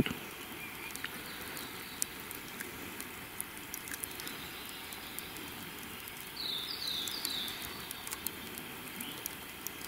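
Quiet outdoor background with scattered faint clicks, and a small bird giving three short, high, falling chirps in quick succession about six and a half seconds in.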